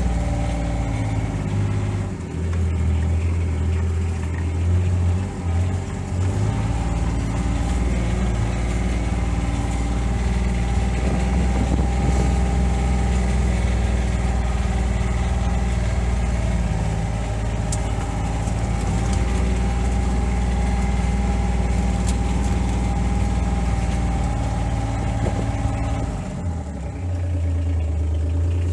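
Diesel engine of a JCB telehandler running steadily, heard from inside its cab as it drives along; the engine note shifts briefly a few seconds in and again near the end.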